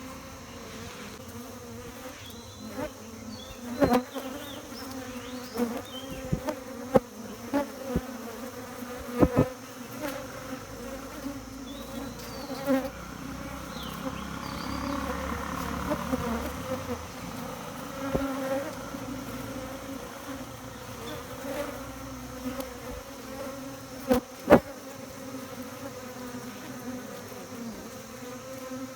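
Honey bees at a hive buzzing in a steady, even hum, with sharp clicks or taps now and then and a low rumble swelling for a few seconds midway.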